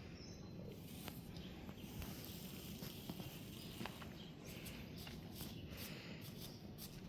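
Faint, irregular rustles and short clicks of a brush being worked through a horse's mane, over a low outdoor background hum.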